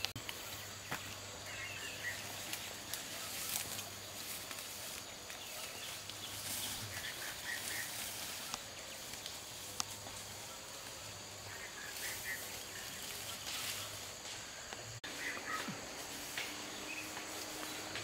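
Rainforest ambience: a steady high insect drone with short bird chirps every few seconds.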